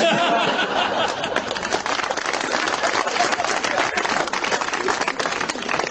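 Studio audience applauding and laughing in reaction to a joke: a dense, steady run of many hands clapping, with laughter mixed in at the start.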